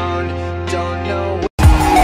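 Song with sustained notes that cuts out abruptly about one and a half seconds in. After a split-second gap, a louder electronic track with heavy, deep bass hits starts.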